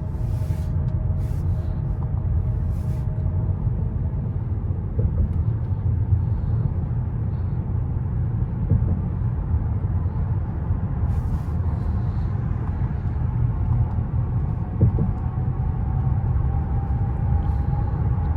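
Steady low road and drivetrain rumble inside the cabin of a 2024 Mercedes-Benz S580 cruising at speed. A faint tone rises slowly near the end.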